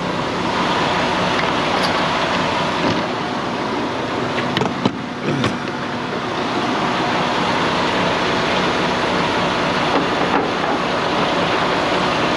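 Steady vehicle hum at a diesel fuel island, with a few sharp metallic clicks and clunks partway through and near the end as the diesel pump nozzle and the truck's fuel tank are handled.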